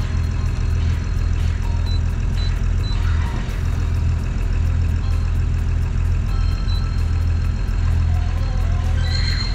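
Marine diesel engine of a motor yacht running steadily: a loud, unchanging low drone.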